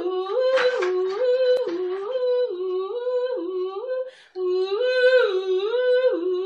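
A two-tone hee-haw police siren imitated by a human voice, stepping evenly between a high and a low note about once every 0.7 s, with a short break for breath about two-thirds of the way through. A few light knocks come near the start.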